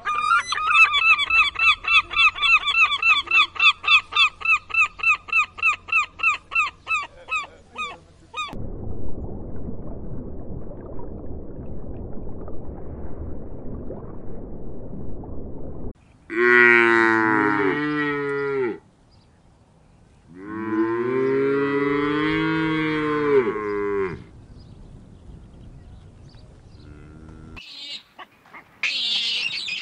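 A flock of gulls calling in fast repeated cries, about three a second, for the first eight seconds, followed by a low steady rushing noise. Then two long, deep animal calls that bend in pitch, the second longer, and near the end a monkey's high calls begin.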